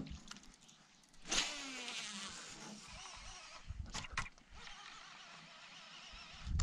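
Baitcasting reel's spool whirring during a cast: a whine that starts suddenly and falls in pitch as it fades over about a second. A few sharp clicks follow a few seconds in.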